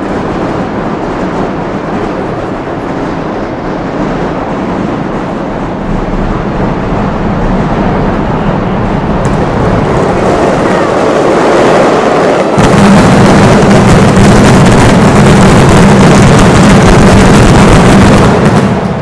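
Mascletà firecrackers going off in a continuous rapid barrage of bangs that grows steadily louder. About two-thirds of the way through it jumps suddenly to a dense, very loud roll of explosions, the closing barrage, which stops about a second before the end.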